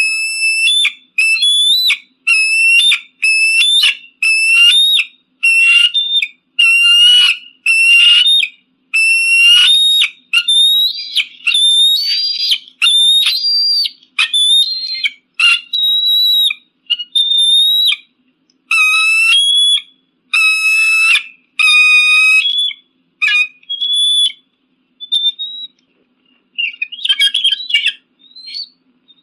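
Eagle calling: a long series of high, piping whistled notes, about two a second, growing sparser and more broken near the end.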